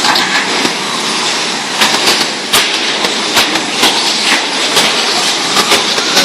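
Radio-controlled short course trucks racing on a dirt track: a steady hiss of motors and tyres, broken by irregular sharp clacks.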